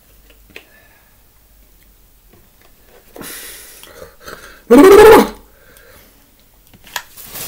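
A man's sharp breath out about three seconds in, then a short, very loud voiced outburst a second and a half later, from someone whose mouth is burning from a super-hot Pepper X chip.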